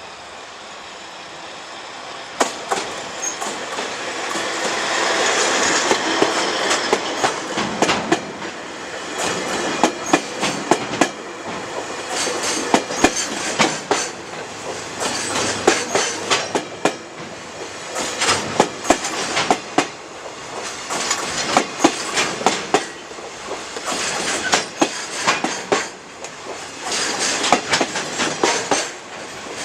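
Keiyo Rinkai Railway KD60 diesel locomotive passing, its sound swelling to a peak about five seconds in, followed by its train of Koki container wagons rolling by with a steady clickety-clack of wheels over rail joints, the clicks coming in regular groups.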